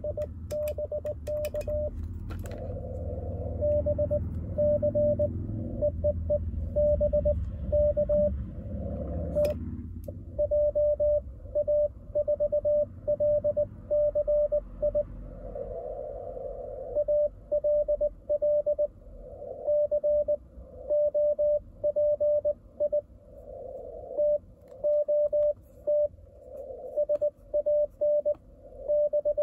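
Morse code (CW) received on the 28 MHz band through the Icom IC-705 transceiver's speaker: a single tone near 600 Hz keyed in dots and dashes, with bursts of band noise at the same pitch between characters. A few sharp clicks come in the first two seconds.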